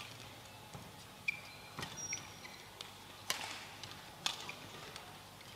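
Badminton rally: sharp racket strikes on the shuttlecock, about five in all, roughly a second apart. Between them come short high squeaks of court shoes on the mat.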